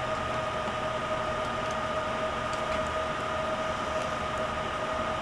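Steady background hiss with a faint, even whine of two steady tones: room and recording noise, with no clear handling sound standing out.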